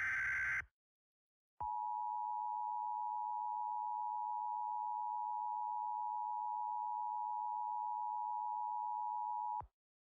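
The end of a digital EAS/SAME header data burst, a brief harsh buzz, then after about a second of silence the weather-radio warning alarm tone: one steady, unwavering tone near 1 kHz held for about eight seconds before cutting off sharply.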